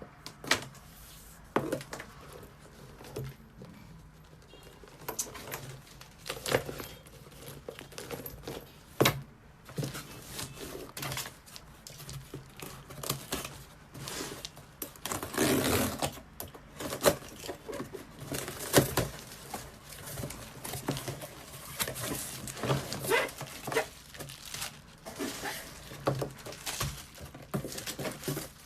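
Objects being handled: irregular clicks, knocks and rustling, with a longer rustle about halfway through, over a faint low hum.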